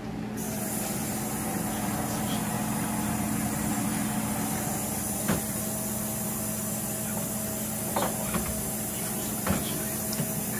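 Steady hiss of food cooking in a pot, coming in suddenly just after the start, with a few scattered pops.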